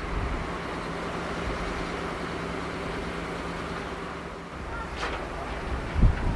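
Strong wind buffeting the microphone, over a steady low hum that stops about four and a half seconds in; a heavier gust thump comes near the end.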